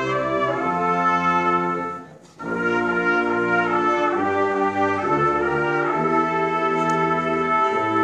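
A wind band playing full sustained chords led by the brass, cutting off briefly about two seconds in and then coming straight back in.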